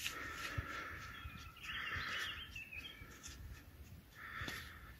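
Handheld metal-detecting pinpointer probe giving short buzzing alerts, about two seconds in and again near the end, as it is swept over a buried target; a bird chirps faintly.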